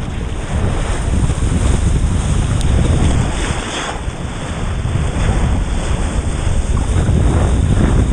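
Heavy wind noise on the microphone over the rush and splash of sea water, with brief louder surges of spray about halfway through and near the end.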